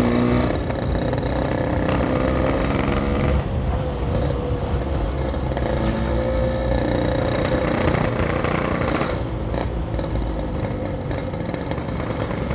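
Yamaha RX-King's two-stroke single-cylinder engine running on the move, its note shifting slightly about three and a half seconds in.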